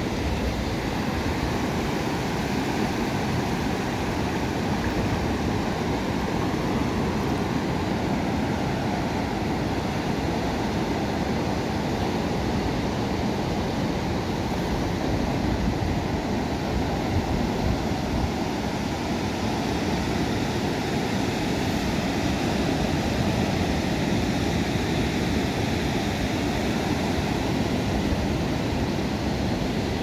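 Steady wash of ocean surf, low waves breaking and spreading over shallow water.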